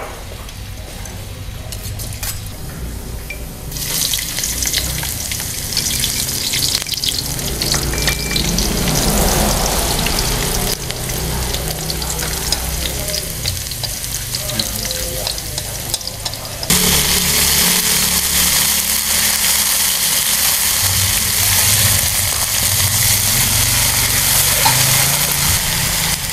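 Garlic sizzling in hot oil in a wok as it is stirred with chopsticks. About seventeen seconds in the sizzle gets suddenly louder as water spinach goes into the wok to stir-fry with the garlic.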